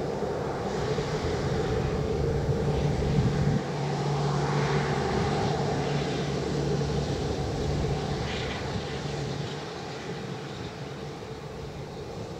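Boeing 787-8 airliner's Rolls-Royce Trent 1000 turbofans running at taxi idle: a steady jet drone with a low hum, growing fainter over the last few seconds as the aircraft turns away.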